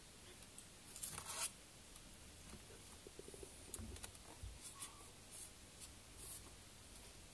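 Faint scratchy rustling and scraping in short bursts, the loudest about a second in.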